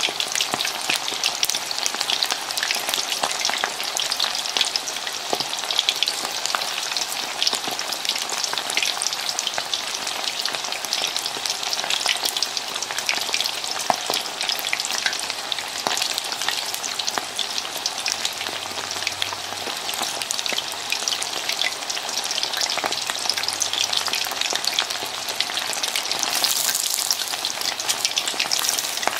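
Potato-starch-coated chicken wings deep-frying in hot oil, left unturned in their first minute: a steady, dense sizzle of bubbling oil full of fine crackles.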